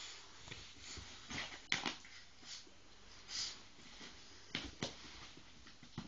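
A Staffordshire Bull Terrier puppy nosing and shoving a fabric dog bed across a rug: faint, scattered rustles and scrapes, with a sharp tap a little under two seconds in.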